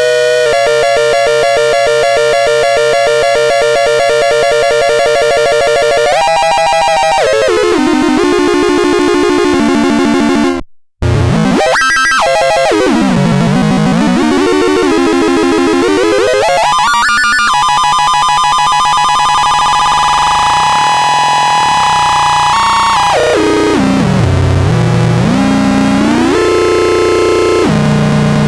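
Cosmoton Duet synthesizer sounding buzzy electronic tones, thick with overtones, that slide up and down in pitch, at times one held tone against a second moving one. The sound cuts out for a split second about eleven seconds in.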